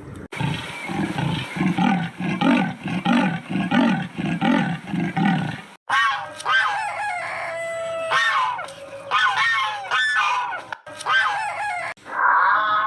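Chickens: a rooster crowing and hens clucking, starting about six seconds in after a sudden cut. Before the cut comes a different animal's clip of regular low calls, about two a second.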